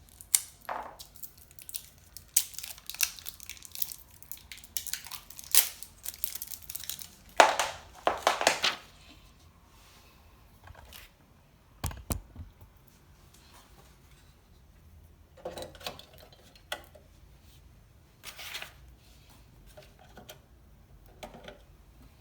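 Packaging for AA batteries being torn open and crinkled, in a run of crackling tears, followed by a few scattered clicks and knocks.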